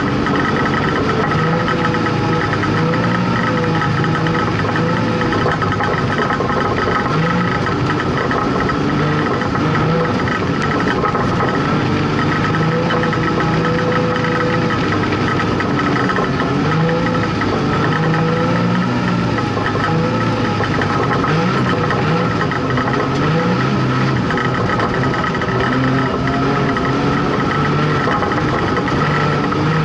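Street stock race car engine running hard under load, heard from inside the caged cabin. Its pitch rises and falls again and again as the driver comes on and off the throttle around the oval.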